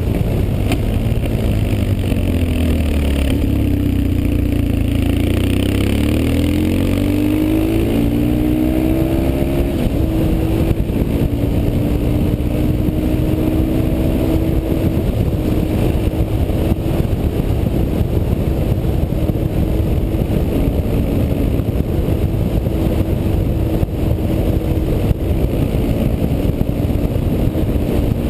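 BMW R 1150 GS's boxer-twin engine running while the motorcycle is ridden, over a constant rumble of wind and road noise. The engine note drops a few seconds in, rises over the next few seconds as it accelerates, then holds fairly steady.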